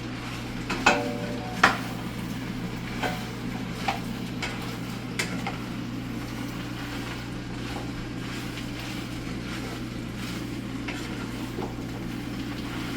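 Spoon stirring noodles into sauce in a cooking pot, with a few sharp clinks against the pot in the first half and fainter ones later, over a steady low hum and sizzle from the pan.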